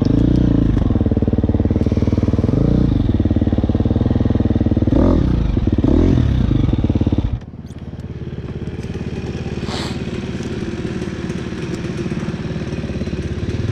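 Dirt bike engine idling close by, loud and steady. About halfway through it cuts off suddenly and a quieter, steady dirt bike engine takes over.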